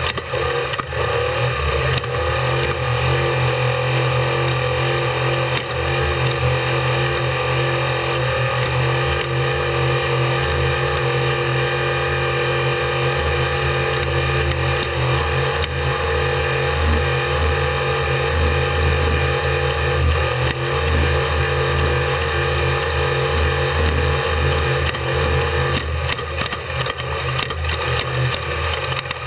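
Unlimited-class desert race truck's engine running hard at speed, heard from on board, held at a fairly steady pitch with a constant wash of drivetrain and wind noise.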